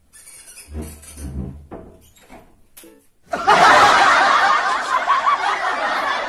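A woman laughing loudly and long, breaking out about three seconds in after a few soft low sounds.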